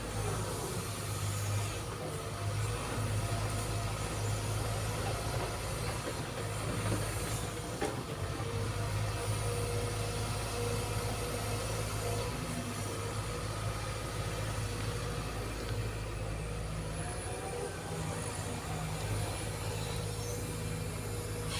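Sumitomo SH210 excavator's diesel engine running steadily, a constant low hum with faint steady higher whining tones over it.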